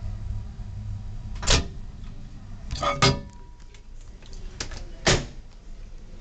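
Microwave oven door being handled with the camera inside: three loud clunks and some lighter clicks as the door and latch open and shut.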